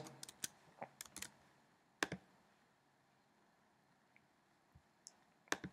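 Faint clicks of computer keyboard keystrokes: a quick handful in the first second and a half, then a few isolated clicks, with quiet between them.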